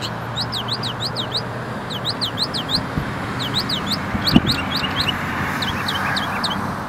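Northern mockingbird singing: quick sweeping notes repeated several times in a row, in runs with short breaks between them, over a steady background noise.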